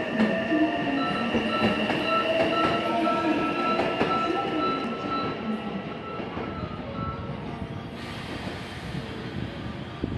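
Electric commuter train sounds at a station platform: several tones that slide in pitch during the first half, and a steady high tone that holds for several seconds, all over a mechanical rumble that slowly grows fainter.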